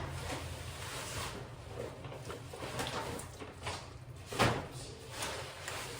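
Kitchen utensil clatter: a run of small knocks and scrapes with one louder knock about four and a half seconds in.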